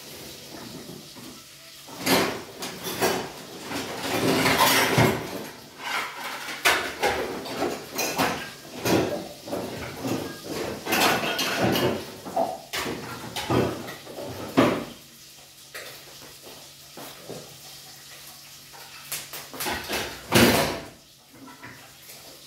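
Dishes, pots and cutlery knocking and clinking in a sink as they are washed by hand. The clatter is busy for the first fifteen seconds or so, then goes quieter, with one loud clatter near the end.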